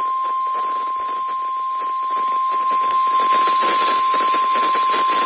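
NOAA Weather Radio 1050 Hz warning alarm tone: a single steady high tone held without a break, over a noisy hiss that grows a little louder about two seconds in.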